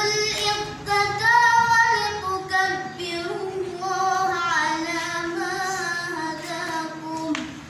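Quran recitation in melodic tilawah style by a young female voice, holding long wavering, ornamented notes in phrases with short breaths between them. The phrase ends shortly before the end.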